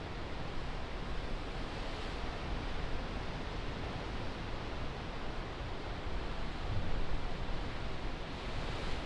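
Steady rushing of wind and distant sea surf, swelling briefly louder about seven seconds in.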